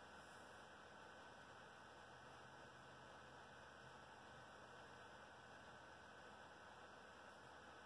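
Near silence: room tone with a faint steady hiss and a thin steady hum.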